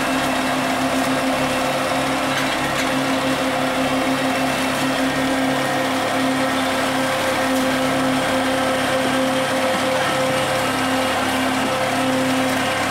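Fishing boat's engine and deck machinery running steadily: a constant hum with a low, even pulsing that smooths out about halfway through.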